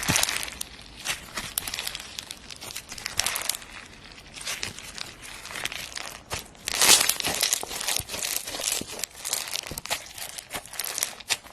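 Slime being squished and pressed by hand: a dense run of irregular sticky crackles and pops, with louder clusters about three seconds in and again around seven seconds.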